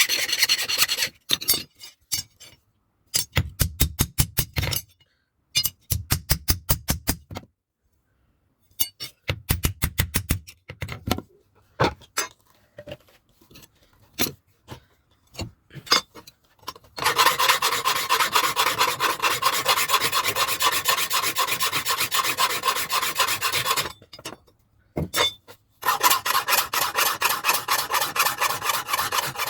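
Hand file rasping across a steel knife blade made from a vehicle leaf spring, in quick repeated strokes. It comes in short bursts with pauses at first, then runs almost unbroken through the second half.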